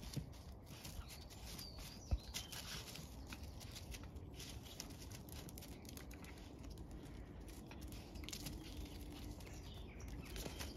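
Light patter of footsteps and paws on grass and paving as small dogs play, with one sharp knock about two seconds in and faint bird chirps.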